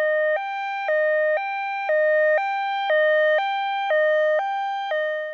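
Fire truck's two-tone hi-lo siren, stepping between a higher and a lower tone about once a second. The tones are clean and electronic, and the siren cuts off suddenly near the end.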